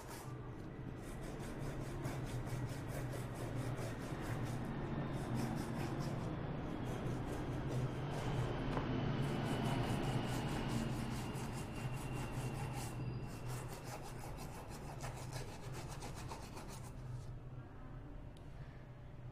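A brush scrubbing back and forth over a computer RAM module wet with isopropyl alcohol, cleaning the circuit board. The steady scratchy rubbing grows louder toward the middle and eases off near the end.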